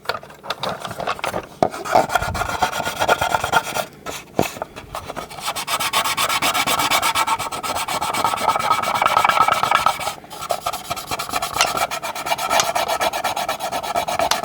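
Cotton swab scrubbing back and forth along decal edges on a plastic toy vehicle, working in baby oil to lift old adhesive residue. A steady rasping rub of quick strokes, pausing briefly twice.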